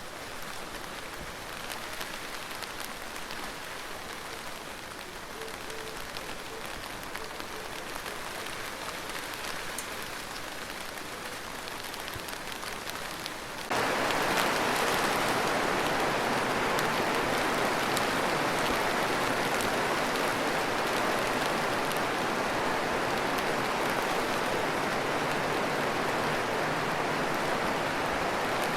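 Steady rain falling, light at first, then about halfway through switching abruptly to a heavier, louder downpour.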